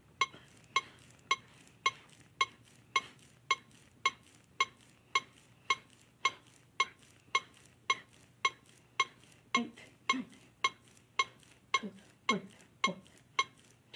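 AED trainer's metronome beeping, a short high beep almost twice a second (about 110 a minute), steady and evenly spaced. It is the prompt that sets the pace for chest compressions.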